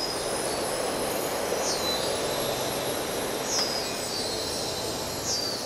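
Dark ambient soundscape: a steady, hissing wash of noise, with a short high falling tone that comes back about every two seconds, four times.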